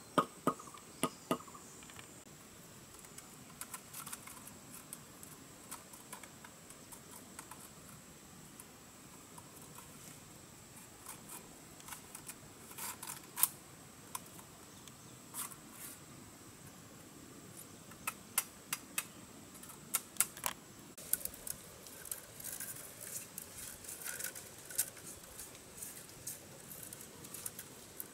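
Scattered sharp clicks, cracks and soft rustling of bamboo being split into thin strips and stripped by hand, the clicks coming more thickly in the second half.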